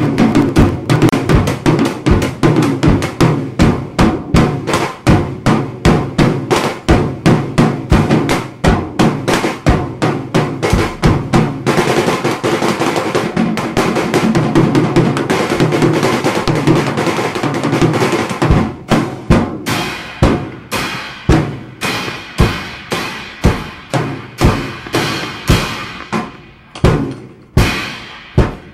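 Live drum-kit playing: fast, steady strikes at about three to four a second for most of the time, thinning to slower, spaced hits with a ringing high tone over the last third.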